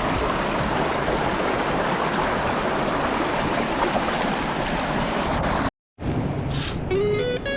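Steady rush of flowing stream water, which cuts off abruptly a little before six seconds in; after a moment of silence, guitar music begins near the end.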